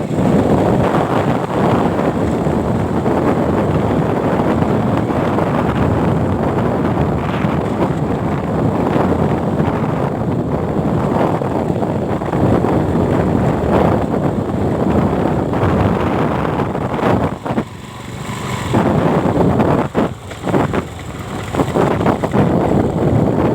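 Excavator's diesel engine running steadily under load, mixed with wind buffeting the microphone, with a brief drop in level about eighteen seconds in.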